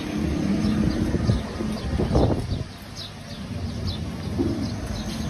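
Small birds chirping over a steady low rumble of background noise, with one brief louder sound about two seconds in.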